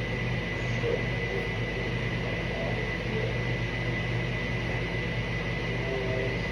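A steady motor hum with a constant thin high whine above it, unchanging throughout.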